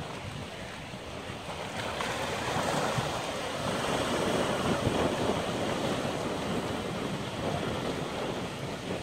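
Ocean surf breaking and washing in among lava rocks along the shore, swelling louder about two seconds in. Wind buffets the microphone underneath.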